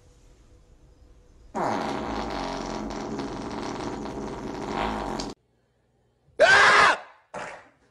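A long, drawn-out buzzing fart lasting almost four seconds, which stops abruptly. Near the end come two short, louder sounds whose pitch bends.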